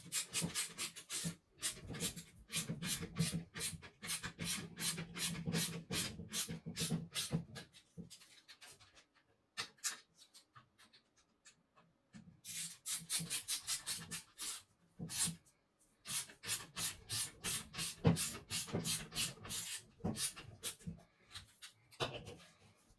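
Screws being turned in by hand with a screwdriver into a car window regulator assembly: a fast run of scraping clicks, about four a second, in two long runs with a pause of a few seconds between them.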